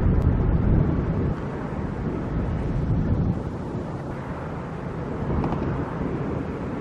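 Wind buffeting the microphone over a steady low rumble, a little louder in the first second or so.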